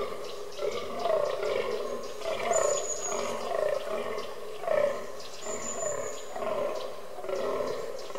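Fallow deer buck groaning in the rut: short, deep calls repeated about once a second. A thin high whistle sounds twice.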